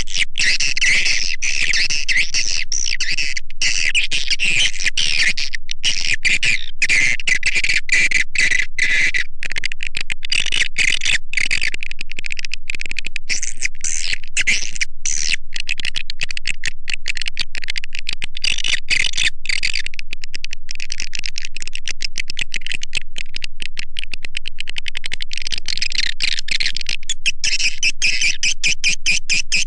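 Swiftlet lure-call recording, the kind played from a nest house to attract edible-nest swiftlets. It is a continuous dense stream of rapid, high-pitched chirps and twitters.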